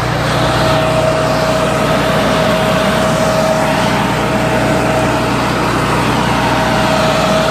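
Hasatsan H 2200 vacuum hazelnut harvester running steadily, its suction fan giving a constant whine over engine hum.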